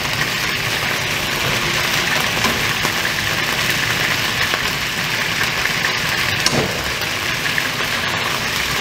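Chicken pieces frying in achuete (annatto) oil in an aluminium wok: a steady sizzle with scattered small crackles.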